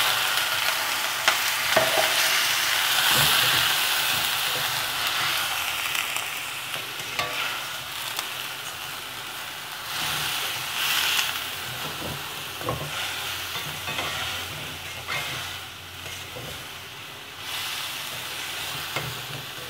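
Chicken and vegetables sizzling in a hot wok just after a splash of water, with a metal spatula scraping and tapping against the pan as they are stirred. The sizzle is loudest at first and slowly dies down, surging again a couple of times with the stirring.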